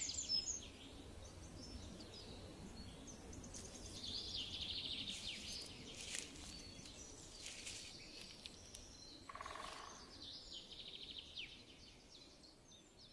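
Faint outdoor ambience of birds chirping in short rapid trills every few seconds over a low hum, growing quieter toward the end.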